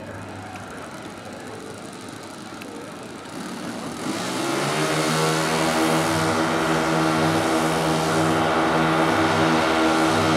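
Piston engine of a large radio-controlled scale warbird model on a flying pass. It hums faintly at first, then about four seconds in it swells quickly to a loud, steady drone, rising a little in pitch as it comes in.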